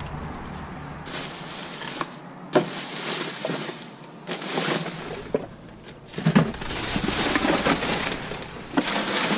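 Plastic bags, bubble wrap and paper crinkling and rustling as gloved hands rummage through rubbish, with a couple of sharp knocks.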